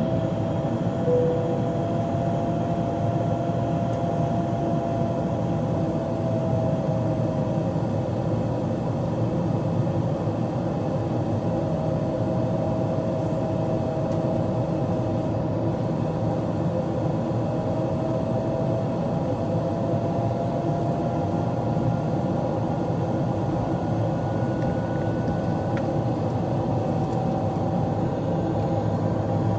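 Steady cabin noise of a Boeing 777-200LR climbing out: its General Electric GE90 engines and the rush of air past the fuselage. A faint engine tone wavers slowly up and down through it.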